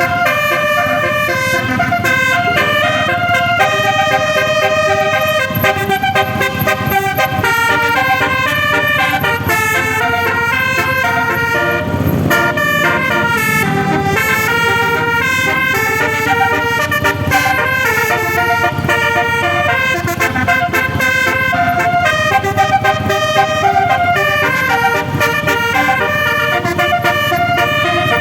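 Basuri 'telolet' multi-tone bus horn playing a tune: several horn tones sounding together and stepping from note to note without a break.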